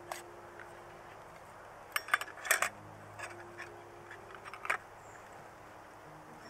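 Light metallic clinks and taps as a brass Trangia spirit burner and its thin metal windscreen and plate are handled and fitted together: a quick cluster of clinks about two seconds in, a few softer taps after, and one sharp clink near the end.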